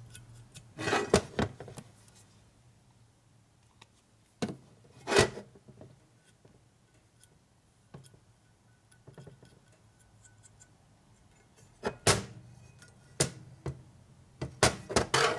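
A handful of separate sharp knocks and clicks from metal engine parts and a small bottle being handled and set down on a metal workbench, with a quicker run of them near the end and quiet between.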